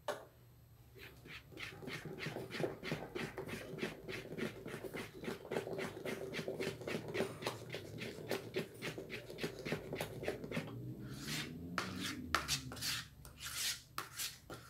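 A plastic spoon stirs thick, creamy soap-and-detergent cleaning paste briskly in a plastic bowl, making quick repeated strokes about four times a second.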